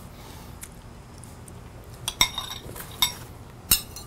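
Metal cutlery clinking against a plate as a butter knife and fork cut smoked chicken: quiet at first, then about four short ringing clinks starting about two seconds in.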